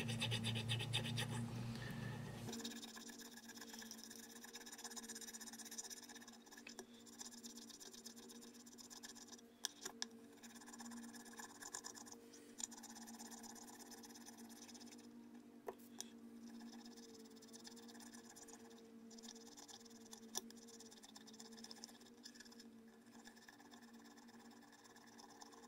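Small needle file scraping in quick strokes over cured Milliput epoxy putty in a chip on a ceramic plate's rim, filing the fill down flush with the glaze. Clearest for the first couple of seconds, then faint, with a few light clicks.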